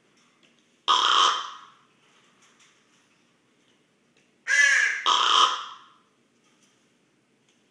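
Raven making rasping, snore-like sounds close to the microphone. There are three: one about a second in, then two back to back about four and a half seconds in, the first of that pair with a more pitched, croaking tone.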